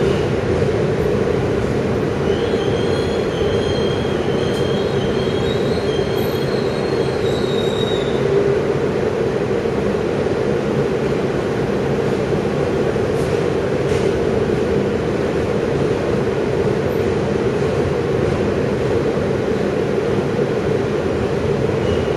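New York City Subway Q train heard from inside the car as it rolls into the terminal: a steady rumble of wheels on rail. Thin, high wheel squeal comes in about two seconds in and fades out around eight seconds.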